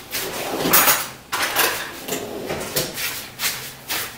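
Spoons and dishes being handled: a run of clattering knocks and scraping, loudest about a second in.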